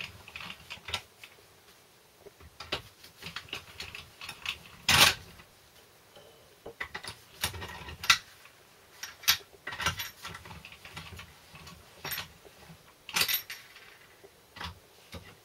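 Steel spanner clinking and clicking on the nuts and bolts of the front cover on a Land Rover Series 3 gearbox as they are done up by hand. Irregular clusters of sharp metallic clicks, the loudest about five seconds in and again near thirteen seconds.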